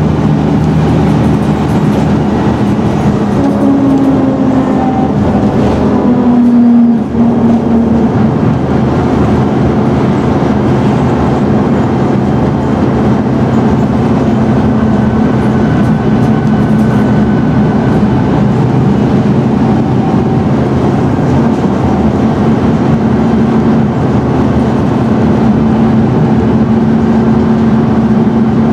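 Scania N113DRB double-decker bus's 11-litre straight-six diesel engine running as the bus drives. The engine note rises twice in the first seven seconds, with a brief drop in level just after, then holds steady.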